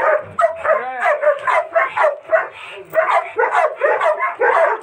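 Dog barking aggressively on a leash, in a rapid run of about four barks a second with a brief lull a little past the middle.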